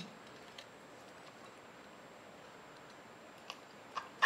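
Kitchen knife tip clicking and tapping on a plastic cutting board while scraping the guts out of a rockfish. A few sparse clicks, with a quick cluster near the end that holds the loudest one.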